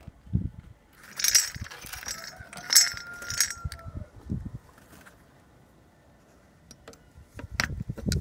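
Metal clinking and jingling of a steel washer and cotter pin being handled on the end of a wheelbarrow axle, in two bunches of sharp clinks with a short ringing tone, about a second and three seconds in, as the wheel is secured; a few light taps near the end.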